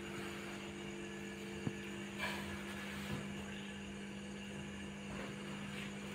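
Steady low electrical hum, with a few faint taps and scuffs from a baby monkey and a kitten tussling on a board top.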